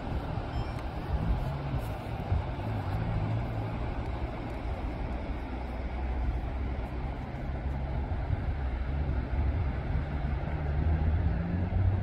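Wind rumbling on the microphone over a steady wash of small waves breaking on the beach.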